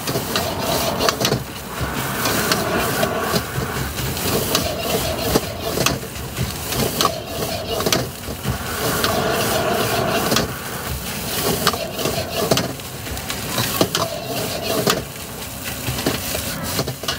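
Metal spatula scraping and knocking against a wok during stir-frying, with frequent sharp clacks throughout.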